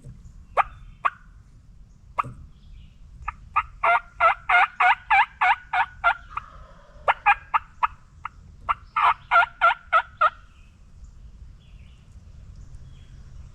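Turkey yelping: a few single yelps, then three runs of loud, evenly spaced yelps at about five a second, the longest lasting nearly three seconds.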